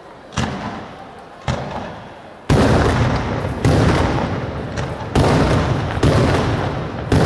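Aerial fireworks shells being fired in quick succession: about seven loud bangs over some seven seconds, each trailing off in a long rumbling echo.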